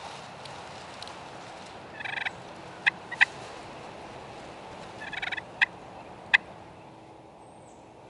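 Turkey clucks and short calls: about four sharp single clucks and two brief clusters of rapid notes, about two and five seconds in.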